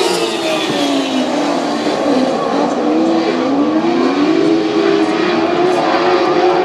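A pack of lightning sprint cars racing on a dirt track, several engines at high revs together. Their pitch dips over the first couple of seconds, then climbs again as they accelerate.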